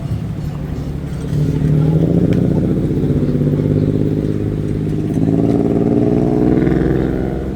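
A motor vehicle engine running close by on the street, getting louder about a second and a half in and easing off near the end.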